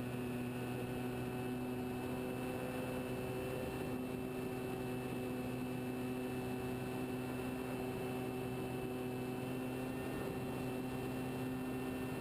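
The motor and propeller of a radio-controlled scale de Havilland Tiger Moth model heard from on board in flight: a steady drone at a constant throttle with even overtones over a rush of air.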